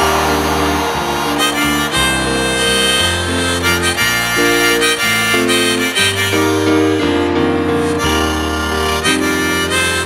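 Harmonica played from a neck rack over piano accompaniment, a melody of held chords that change every second or so.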